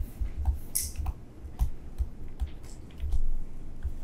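Stylus tapping and stroking on a tablet screen while handwriting, heard as irregular small clicks and short scratchy strokes over soft low bumps.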